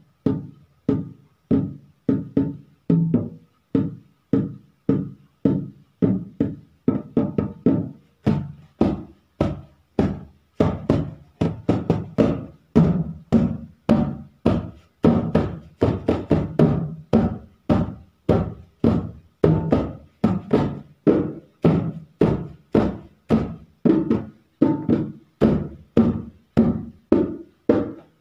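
Dholak, a two-headed barrel drum, played by hand in a steady, even rhythm of about two main strokes a second with lighter strokes between.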